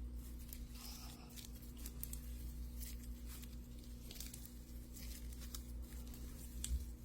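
Thick, glossy gravel slime being stretched and squeezed by hand, giving faint sticky squishes and scattered little crackles and clicks.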